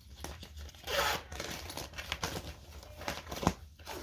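Paper and plastic folders rustling and crinkling as a binder's contents are handled and sorted, with the loudest rustle about a second in and a sharp click a little before the end.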